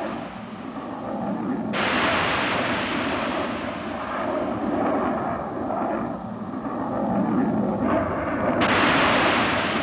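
Jet aircraft roar, a steady rushing rumble that jumps abruptly louder and brighter about two seconds in and again near the end.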